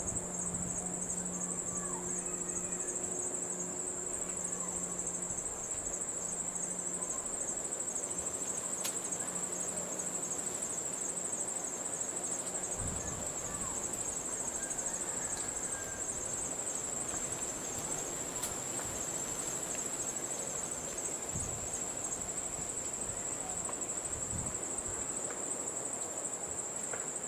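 Insects calling in a continuous high-pitched trill that holds steady without a break.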